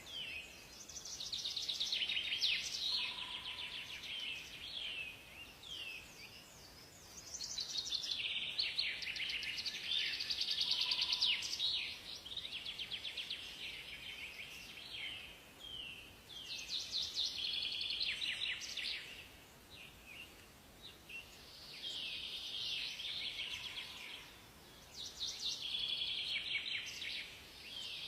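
Songbirds singing: high, rapid trills and sweeping notes in phrases a few seconds long, repeated after short pauses, over a faint steady hiss.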